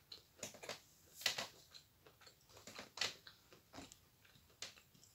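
Someone chewing a mouthful of Akbulak chalk: a string of faint, irregular crunches, the loudest about a second in.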